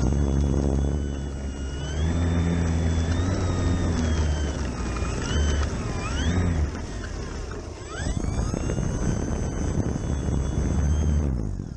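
Durafly Tundra electric RC plane's motor and propeller whining, the pitch rising and falling with throttle and dipping sharply then climbing again about eight seconds in. A heavy low rumble runs under it, and the sound fades away at the end.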